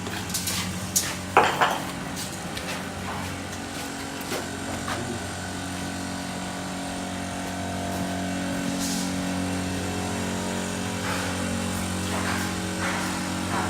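Steady hum of a machine running on a building site, with a few sharp knocks in the first two seconds and scattered light taps after.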